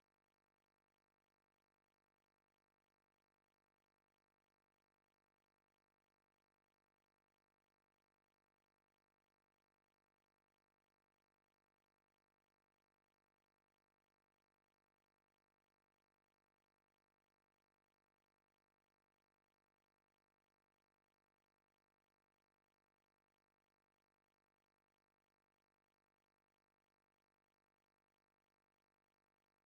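Near silence: a blank audio track with no audible sound.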